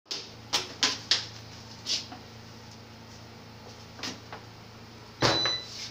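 Several short knocks and clicks of objects being handled on a lab bench, then a louder, longer clatter about five seconds in with a brief high ringing note, over a steady low hum.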